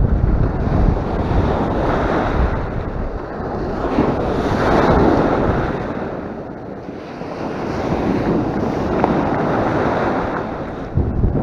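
Rough sea surf breaking and washing over a rocky shore. It swells louder about four seconds in and again near eight seconds, with wind rumbling on the microphone throughout.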